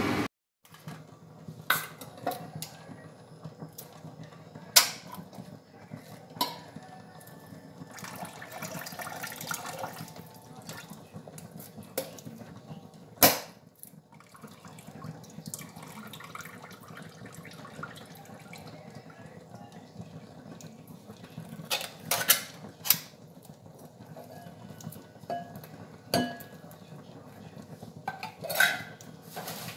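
Kitchen work at a sink and counter: scattered sharp clinks and knocks of utensils, a can and dishes, the loudest about thirteen seconds in, with a short stretch of running or splashing water about eight to ten seconds in. Near the end, sweetcorn is tipped from a can into a glass bowl.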